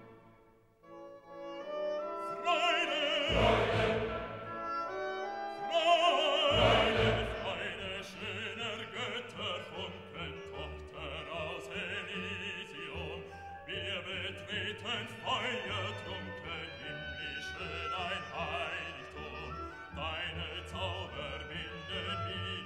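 Background music in an operatic, classical style with orchestra and a vibrato singing voice, swelling loudly about three and six seconds in and then running on steadily.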